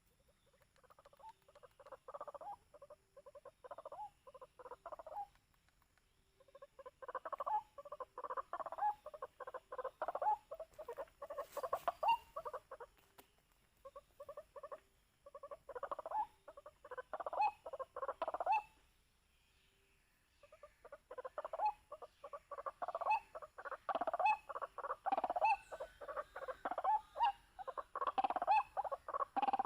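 White-breasted waterhen calling: bouts of rapid, repeated notes, four bouts broken by short pauses, the last one running longest.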